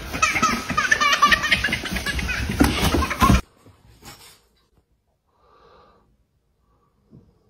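A baby laughing hard in rapid, repeated bursts. The laughter cuts off suddenly about three and a half seconds in, leaving near silence with a couple of faint short sounds.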